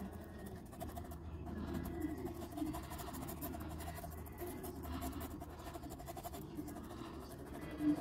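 Paintbrush rubbing faintly on fabric, blending paint in small scrubbing strokes, over a low steady background hum.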